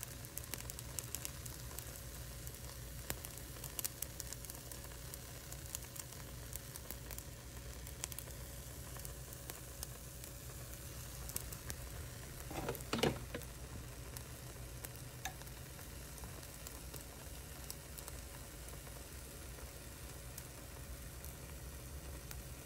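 Spinach wrap batter frying in oil in a pan: a faint sizzle with scattered small pops and crackles, more frequent in the first half. One brief, louder noise comes about thirteen seconds in.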